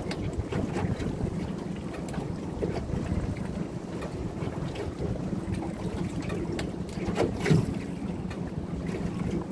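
Wind buffeting the microphone aboard a small boat over a steady low hum, with one brief louder knock about seven and a half seconds in.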